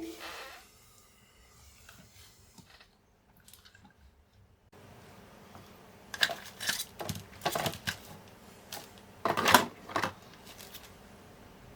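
Handling noises at a workbench: a series of short scrapes and clicks, several in a row about six to ten seconds in, the loudest near the end of that run, over a faint steady hiss that sets in about halfway through.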